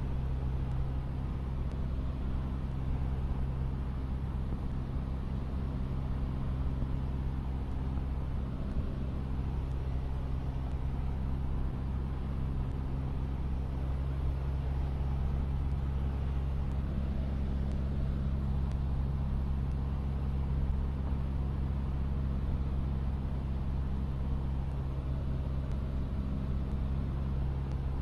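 Cessna 152's four-cylinder piston engine and propeller running with a steady, even drone.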